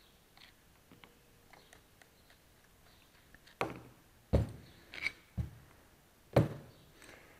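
Engine connecting rod and its bearing cap being handled and set down on a workbench: a few faint clicks, then a run of sharp metal knocks in the second half, one of the loudest near the end.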